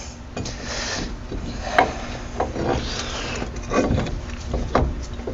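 Scraping, rubbing and a few knocks of metal parts as a truck's CV axle shaft is worked loose and pulled toward the hub and steering knuckle.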